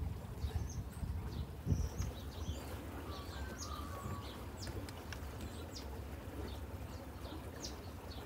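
Birds chirping outdoors, short high calls scattered throughout, over a steady low rumble of wind.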